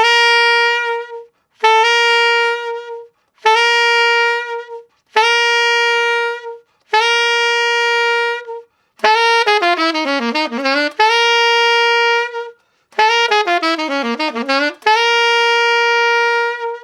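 Saxophone playing a string of five short held notes on the same pitch, G with the octave key. Each is tongued from a half step below (F sharp into G), and the move speeds up into a grace note. Then come two quicker phrases that dip down and climb back, each ending on a long held G.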